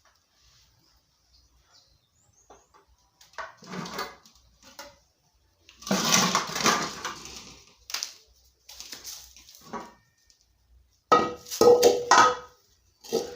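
Metal sufuria cooking pot and utensils clattering and scraping in several short bursts, the last one ringing briefly.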